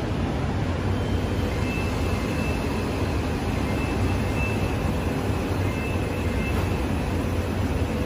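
Steady hum and rumble of a stationary Odakyu Line electric commuter train standing at the platform with its equipment running. Faint high tones come and go through the middle.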